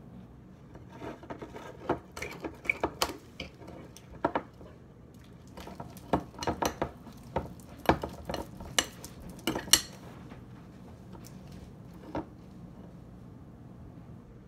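A utensil clinking and knocking against a bowl while stirring slime, a busy run of clinks for most of the first ten seconds, then one more near twelve seconds.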